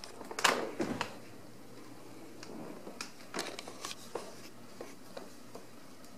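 A Ragdoll kitten's paws and claws scrabbling and tapping on a hardwood floor as it pounces at a dangling wand toy. There is a quick flurry of scrapes about half a second in, then scattered lighter taps a few seconds later.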